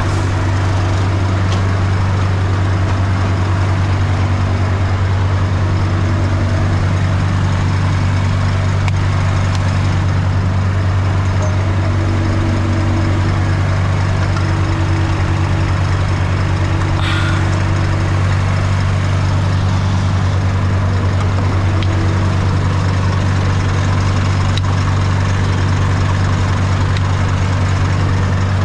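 Heavy truck's diesel engine idling steadily, with a brief sharp noise a little past the middle.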